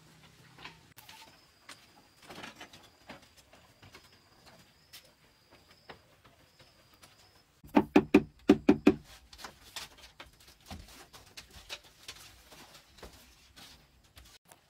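A quick run of about seven loud wooden knocks, about eight seconds in, as a wooden window frame is struck into its opening in a mud wall. Lighter clicks and taps of wood being handled come before and after, with a thin steady high tone in the first half.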